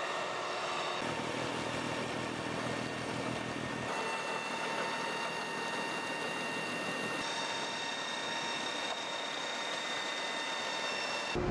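Tractor-mounted Dalen snow blower driven by a Massey Ferguson 8740 S tractor, throwing snow: a steady engine drone with a whine from the spinning blower and a rush of snow. The mix of whines shifts suddenly a few times.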